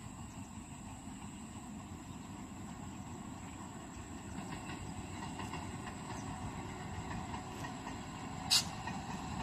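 Train running along the rails, a steady rumble with wheel clatter that grows gradually louder. A single sharp click about eight and a half seconds in.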